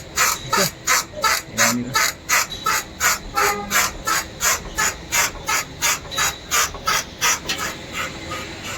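Mahindra Scorpio S5's front-left lower control arm squeaking over and over, about three squeaks a second, as the SUV is rocked on its suspension, fading near the end. The squeak comes from a loose lower-arm bolt at a slightly rusted bush.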